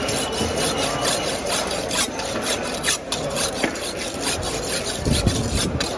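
A large fish-cutting knife being sharpened by hand on a flat sharpening stone: steel scraping across stone in quick, repeated back-and-forth strokes.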